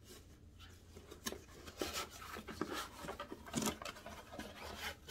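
A cardboard mailer box being handled and opened by hand: scattered rustles, scrapes and light taps of the flaps and packaging.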